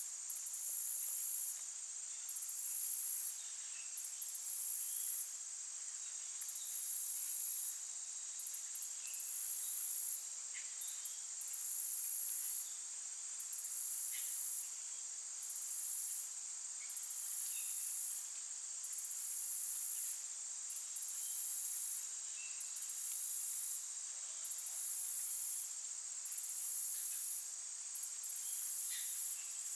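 Insect chorus: very high-pitched trills that switch on and off in pulses of about a second, over a steady high buzz, with a few faint short chirps scattered through.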